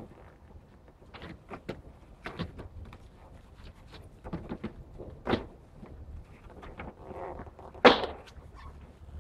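Cardboard boxes of mangoes being picked up, set down and stacked by hand: a run of irregular knocks and thuds, the loudest about eight seconds in.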